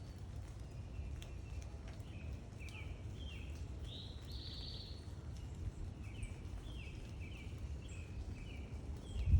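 Small backyard songbirds chirping repeatedly: short, quick falling notes, several birds calling back and forth, over a steady low outdoor rumble. A single loud thump near the end.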